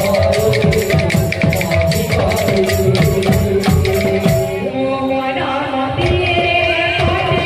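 Odia kirtan music: percussion keeps a fast, even beat under a held melody line. About four and a half seconds in the sharp percussion drops out and the sustained melody carries on alone.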